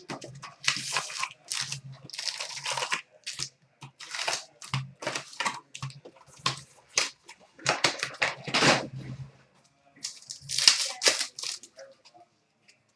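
Hockey card packs being torn open and their wrappers crinkled and crumpled, in a run of short, irregular rustling and crackling bursts.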